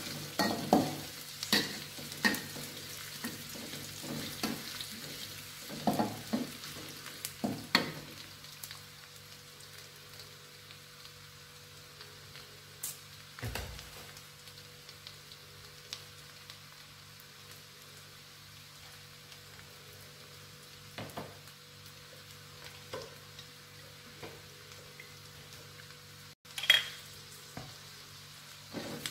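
Sliced shallots and garlic sizzling in hot oil in a wok while a metal spatula scrapes and knocks against the pan, with frequent strokes for the first several seconds. After that a quieter steady sizzle with only occasional taps, and one sharp clack near the end.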